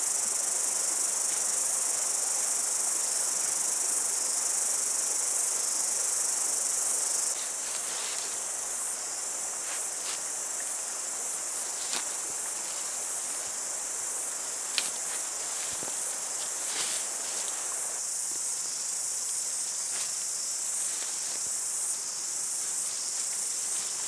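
Steady high-pitched insect chorus, dipping a little about seven seconds in. Over it come a few light clicks and rustles as a nylon tent is spread out and handled on the grass.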